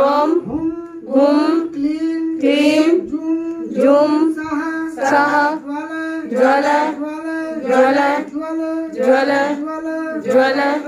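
Devotional chanting of Sanskrit verses in a sing-song melody, short phrases repeated at a steady pace on nearly the same pitch.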